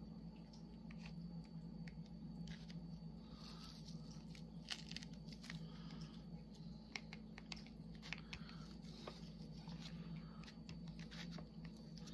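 Faint crinkling and scratching of fingers picking at the plastic cover film stuck to the glue of a diamond painting canvas, with scattered small clicks; the film is sticking to the glue rather than peeling free.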